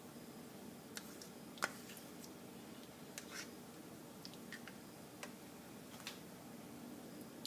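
Faint steady background hum with a handful of scattered small clicks and ticks, the sharpest about one and a half seconds in.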